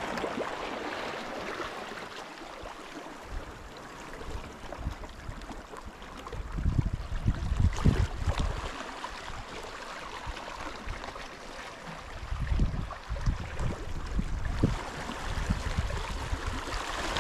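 Sea water lapping and gurgling close by, with low rumbling gusts of wind on the microphone from about six to eight seconds in and again later.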